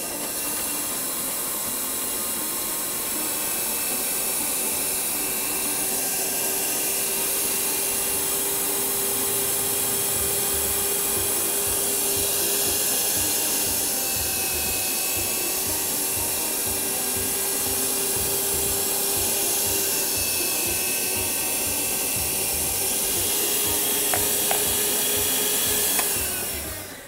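Panasonic electric meat grinder running steadily, its motor whining as it grinds seasoned cooked rice into a paste. It is switched off near the end.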